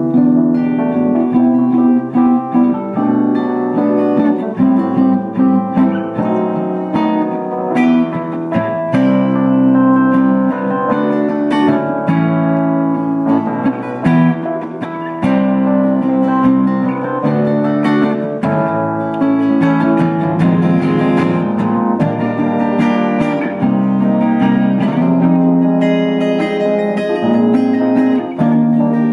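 Acoustic guitar strumming chords in steady instrumental music, the chords changing every second or two.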